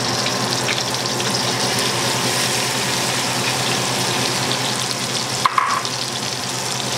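Lamb shanks frying in hot oil in a stainless steel pot, a steady sizzle as chopped onion is tipped in, with a brief sharp knock about five and a half seconds in.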